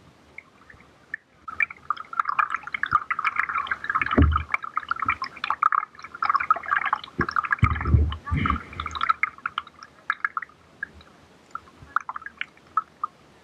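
Water splashing and gurgling close to the microphone in quick irregular spatters, with two low thumps about four and eight seconds in.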